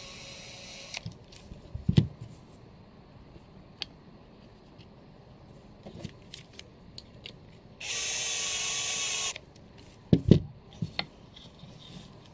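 A 12 V cordless drill-driver whirring in two short bursts while driving screws into plywood. The first burst stops about a second in, and a second burst of about a second and a half comes about two-thirds through. Sharp knocks and clicks of the wood and tool being handled fall between the bursts, the loudest about two seconds in and just after the second burst.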